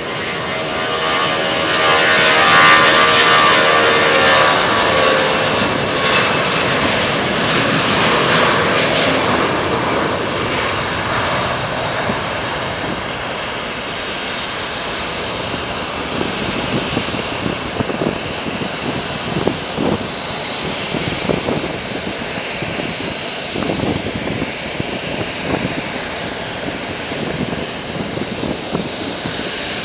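Widebody jet airliner taking off at full thrust. The engines' whine and roar are loudest in the first third as it passes, then turn into an uneven rumble that slowly fades as the aircraft climbs away.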